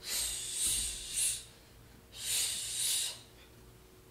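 A woman breathing hard with exertion during an exercise. There are two long breaths about two seconds apart, each in two pulses.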